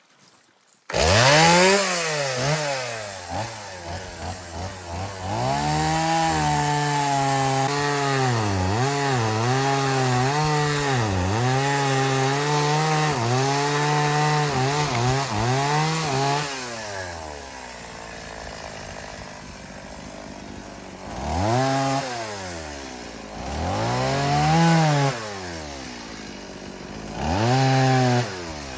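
Chainsaw cutting up a felled tree trunk, its engine pitch dipping again and again as the chain bogs in the wood. It drops to a lower, quieter run about two-thirds of the way through, then is revved up three times near the end.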